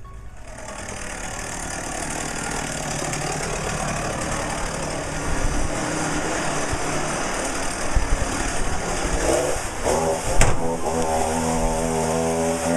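Gas chainsaw running and being revved, swelling up from the start, with a sharp knock about ten seconds in and a steadier high-revving tone after it.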